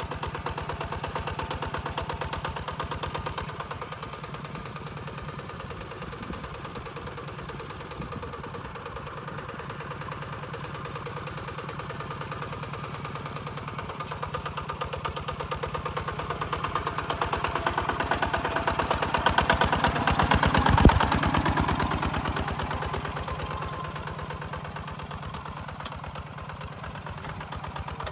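Single-cylinder diesel engine of a two-wheel walking tractor running steadily under load as it pulls a plough through dry field soil, with a rapid, even beat. It grows louder from about 17 s, peaking around 20 to 21 s with one sharp knock, then fades back.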